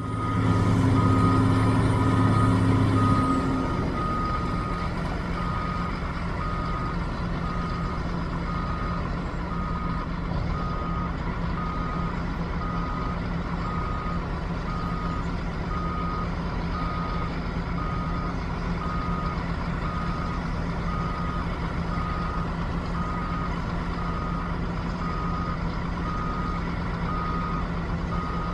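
Backup alarm on heavy construction equipment beeping at an even pace, over a diesel excavator engine running under load. The engine is louder for about the first three seconds, then settles to a steady level.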